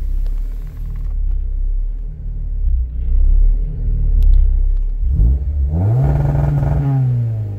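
Honda D16Y4 four-cylinder engine running on a Haltech Elite 550 standalone ECU through a patch loom. It idles steadily with a low rumble, is revved up sharply about five seconds in, holds there briefly and eases off near the end.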